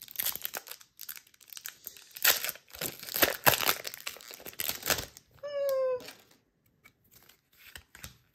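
Foil Pokémon booster pack wrapper crinkling and tearing as it is opened by hand, a run of sharp rustles over the first five seconds. About five and a half seconds in comes one short high-pitched call that falls slightly in pitch, followed by a few faint clicks.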